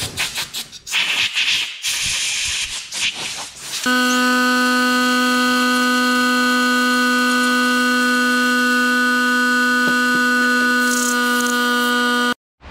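Compressed-air blow gun hissing in short irregular blasts, then a corded rotary tool running steadily at a constant high-pitched hum for about eight seconds before cutting off abruptly.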